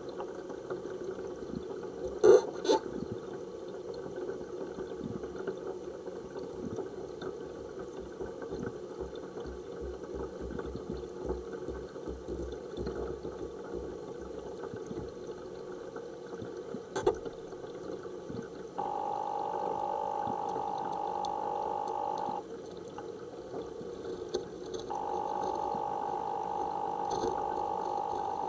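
Utility knife blade cutting through the black suede upper of a Caterpillar Colorado boot, a low steady noise with a few sharp clicks near the start and once around the middle. A steady hum starts and stops twice in the second half.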